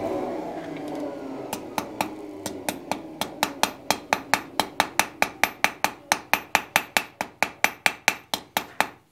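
Blacksmith's hammer striking a glowing wrought-iron bar tip on the anvil in quick, even blows, about four a second, to forge-weld the layered end. The blows start about a second and a half in, grow louder over the first few seconds, and each one rings faintly off the anvil. A steady rushing noise fades out in the first second.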